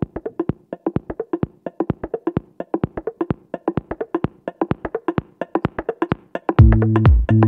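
Electronic background music: a fast, even ticking percussion pattern over a soft held note, with a heavy bass and synth chords coming in louder near the end.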